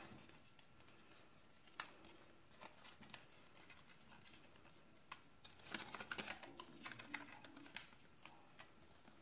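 Faint rustling and scattered crisp clicks of printed cardstock being folded and creased by hand along its die-pressed fold lines.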